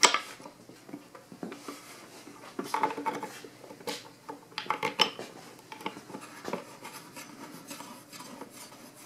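Scattered clicks, knocks and rubbing as bolts are threaded by hand through spacers into an Eames Lounge's aluminium upright, the upright shifting against the molded plywood back shell. The sharpest knocks come about 3, 4 and 5 seconds in.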